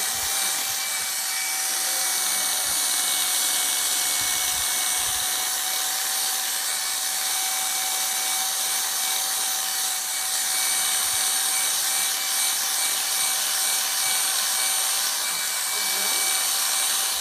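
Electric dog grooming clippers running with a steady whine, the blade cutting through a miniature schnauzer's curly coat.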